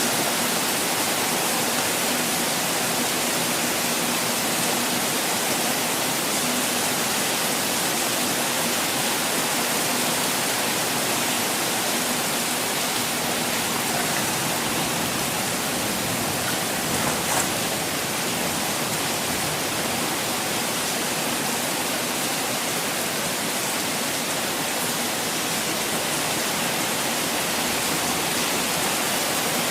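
Water falling steadily: a constant, even rush of water with no change in level.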